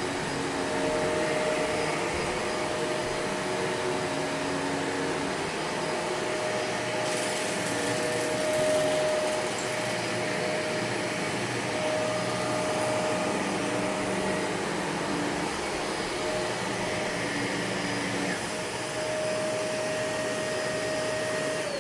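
Vacuum cleaner running steadily: a constant motor whine over a dense rushing hiss. The hiss turns brighter and higher for a couple of seconds about seven seconds in.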